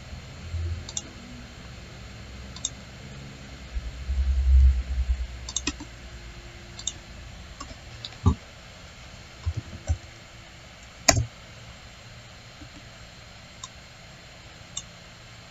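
Scattered computer mouse clicks, about a dozen short ticks at irregular intervals. There is a dull low bumping about four to five seconds in, and one sharper, louder click near the middle.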